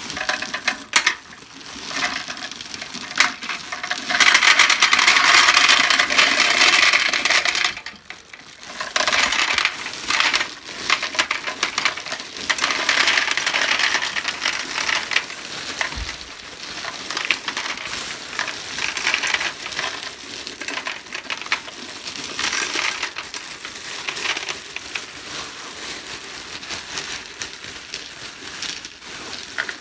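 Gumballs being poured into a gumball machine's globe, a dense clatter of many hard balls knocking together, heaviest in a steady rush about four seconds in, then thinning to scattered spills and rattles as the last ones go in.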